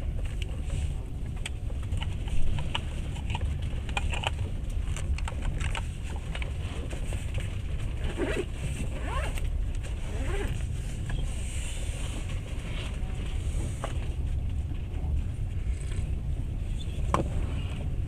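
Passenger train running: a steady low rumble of the wheels on the rails heard from inside the carriage, with scattered clicks and knocks and one sharper knock about two seconds in.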